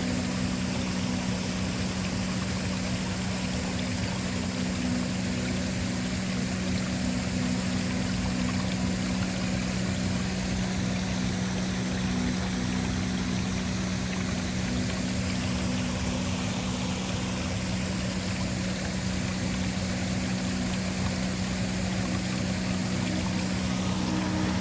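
Waterfall rushing in a steady, even wash, with a low sustained drone of ambient background music beneath it. A new, higher note joins the drone near the end.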